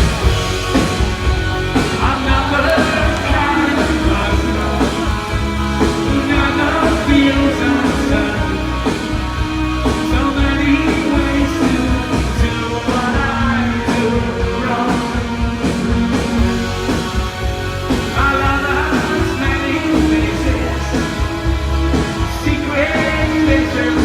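Rock band playing live, with a man singing over loud guitars, bass and drums.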